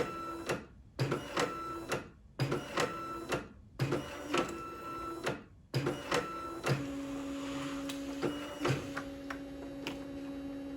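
Canon BJ-130e bubble jet printer at work: several short runs of print-head carriage motor noise and clicking, broken by brief silent gaps. Near the end comes a longer steady motor hum of about four seconds.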